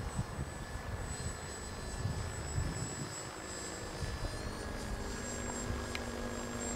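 Remote-controlled autogyro flying overhead, its motor and propeller giving a steady high whine. An uneven low rumble from wind on the microphone runs under it.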